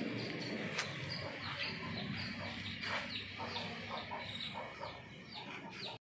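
Chickens and chicks on a poultry farm peeping: a steady run of short, high chirps that fall in pitch, several a second, over low background noise.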